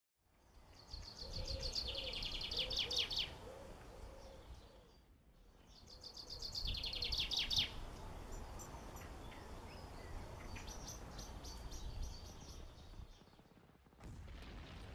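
Outdoor birdsong: a songbird sings two rapid, high trilled phrases about two seconds long, a few seconds apart, followed by fainter scattered chirps, over a steady low background noise.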